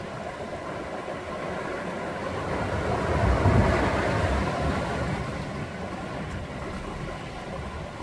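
Sea waves breaking on a rocky shore: a continuous wash of surf that swells into one loud breaking wave about three and a half seconds in, then fades as the water washes back among the rocks.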